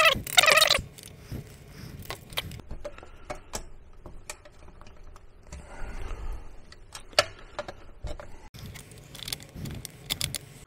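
Scattered light metallic clicks, rattles and scrapes of screws being taken out and a plastic electrical enclosure being handled and opened.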